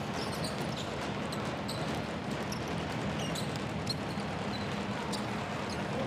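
Live sound of an indoor basketball game: a steady arena crowd din, with the ball being dribbled on the hardwood court and short, high shoe squeaks scattered through it.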